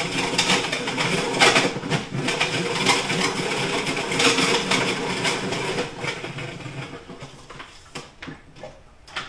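Plastic salad spinner whirring and rattling at the kitchen sink, then slowing and dying away over the last few seconds.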